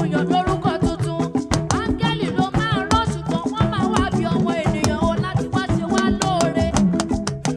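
Upbeat live African gospel praise music: a band with drums and hand percussion keeping a fast, steady beat under a gliding lead melody.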